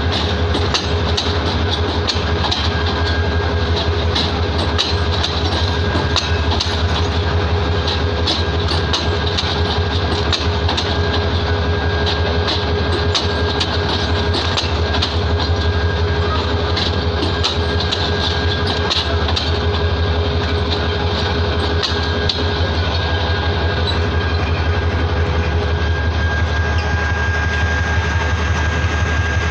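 Bangladesh Railway passenger coaches rolling past as the Bijoy Express enters the station, the wheels clicking over the rail joints over a steady rumble, with a thin steady whine underneath. The clicking thins out in the last third as the final coach goes by.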